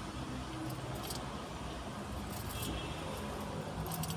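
A steady low hum with a few brief light metallic jingles, one about a second in and another near the end.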